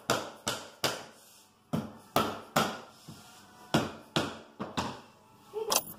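A run of sharp thumps, about two or three a second in short runs with brief pauses, each dying away quickly.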